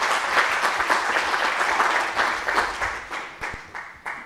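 A small audience applauding, the clapping thinning out and fading away near the end.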